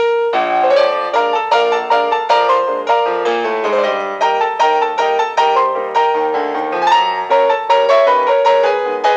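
Ragtime piano music: a brisk, steady run of piano notes.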